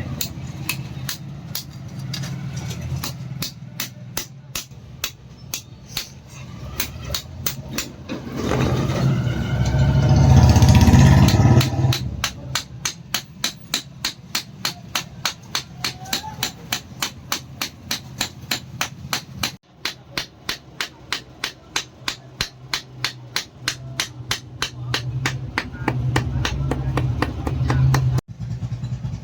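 Hammer blows on hot iron being forged into a knife blade, struck in a steady, even rhythm of about three to four blows a second, over a steady low hum. A louder sound with a wavering pitch breaks in for about three seconds around nine seconds in.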